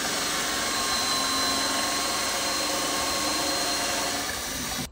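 Cordless drill running steadily under load in a drill guide, boring a long bit down through a thick wooden vise jaw. The sound cuts off abruptly near the end.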